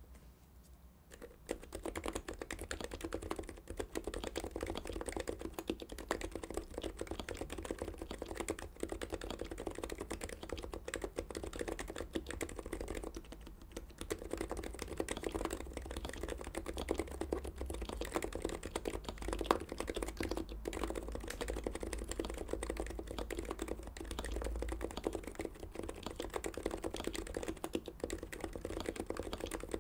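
Continuous typing on a Heavy-9 Topre-style keyboard with Deskey sliders, BKE-style rubber domes, a stainless steel plate and GMK keycaps: a rapid, even stream of keystrokes. It starts about a second and a half in, with a short pause about halfway through.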